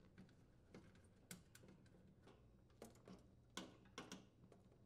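Faint, irregular metallic clicks as the brass nut of a refrigerator's water supply line is threaded onto the water inlet valve and tightened with an open-end wrench.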